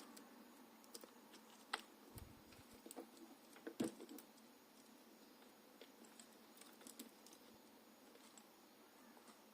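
Faint scattered clicks and taps of small tools and wires being handled during soldering, the two loudest about two and four seconds in, over near silence.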